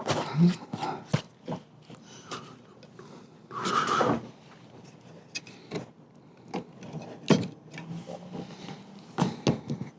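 Wooden table parts being handled and fitted together on a workbench: scattered knocks and clicks, with a longer scraping sound about four seconds in.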